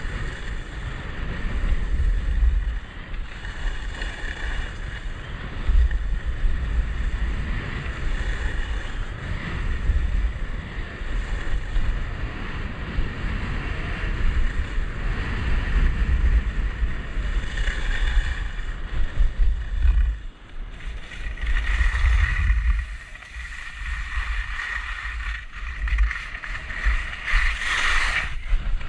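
Wind buffeting a head-mounted action camera's microphone while skiing downhill, over a steady hiss of skis sliding on packed snow. Louder scraping surges come several times in the second half, as the ski edges bite in turns.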